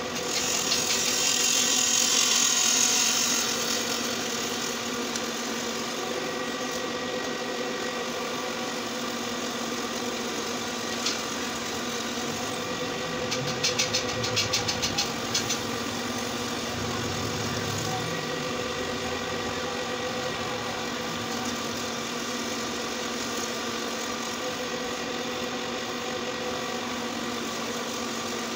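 Pillar drill motor running steadily while its bit cuts into a flat steel bar. The cutting is louder and hissier for the first few seconds, and a quick run of ticks comes about halfway through.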